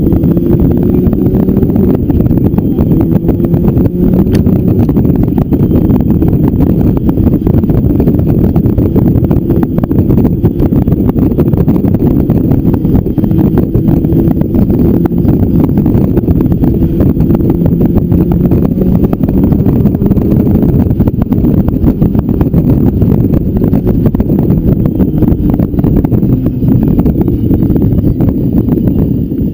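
Motorcycle engine running at a steady cruise, heard from on the bike, its pitch drifting gently up and down, under a loud rush of wind on the microphone.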